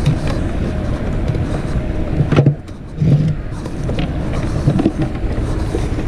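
A steady low rumble with a few light clicks and knocks from handling fishing line and a plastic cooler box.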